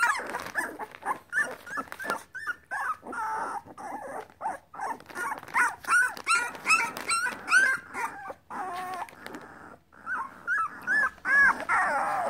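Young cocker spaniel puppies squealing and whimpering: many short, high-pitched rising-and-falling squeaks in quick succession, easing off briefly about two-thirds of the way through before starting again.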